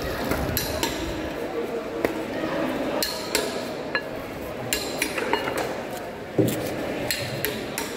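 Irregular knocks and clinks of a large knife against a wooden cutting board and a whole tuna being handled and cut on it, with a louder thump about six and a half seconds in.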